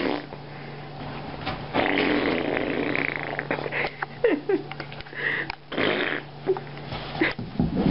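A boxer dog making noisy breathing and grumbling sounds while pawing and nosing at a blanket, with the blanket rustling. A couple of short falling vocal sounds come a little after four seconds in.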